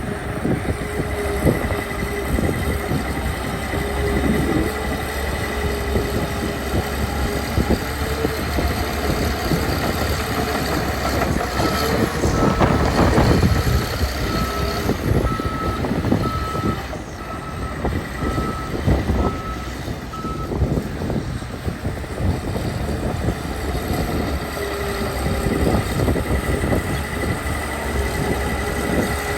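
Caterpillar 816D's diesel engine running under load as it works dirt, with clanks from the machine. A reversing alarm beeps about once a second for roughly nine seconds in the middle.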